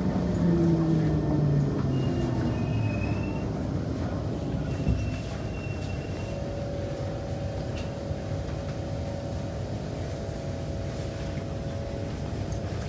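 Kawasaki C151 MRT train heard from inside the car as it slows. The traction motor whine falls in pitch over the first two seconds. A single knock comes about five seconds in, then a lower, steady running rumble with a faint hum.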